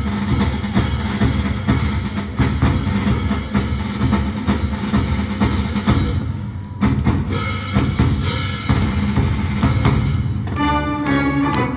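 Symphony orchestra playing a loud, drum-driven passage, with fast snare and bass drum strikes and rolls; held instrument notes come in near the end.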